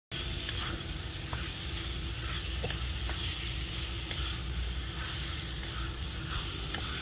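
Diced pork belly and curry paste sizzling in a hot pan while a wooden spatula stirs them, with occasional scrapes and light taps of the spatula against the pan.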